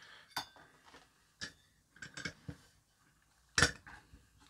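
A Wltoys 124019 RC car being turned over by hand and set down on a workbench: a handful of light knocks and clicks from its chassis and parts, the loudest about three and a half seconds in.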